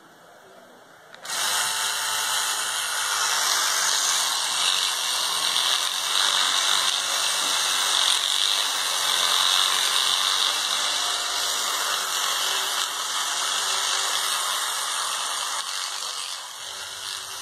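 Electric toothbrush with a round rotating head switched on about a second in and whirring steadily as it brushes a cat's teeth, a little quieter near the end.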